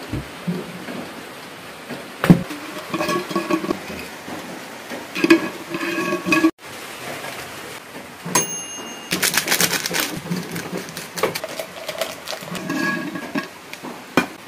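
Dishes, glassware and cutlery clinking and knocking, with a thick run of clatter about two-thirds of the way through, and some pitched tones sounding in between.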